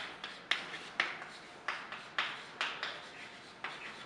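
Chalk writing on a blackboard: an irregular run of about ten short tapping, scratchy strokes, each sharp at its start and quickly fading.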